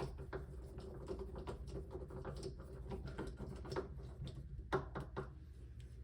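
Small screws being tightened back into an electronic safe lock's housing: a run of light, irregular clicks and scrapes.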